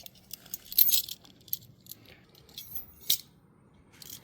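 Keys and small metal items on a keychain jangling and clicking as they are handled, in a few short bursts, the loudest about a second in and again around three seconds in.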